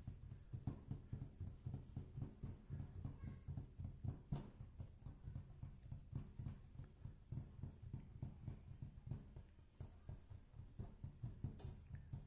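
Rapid fingertip tapping on a surface: a quick, even run of low, dull knocks, several a second.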